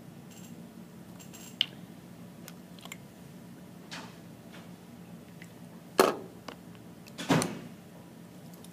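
Handling noise of a small plastic test tube and reagent dropper bottle: a few light clicks, then two louder knocks a little over a second apart near the end, over a steady low hum.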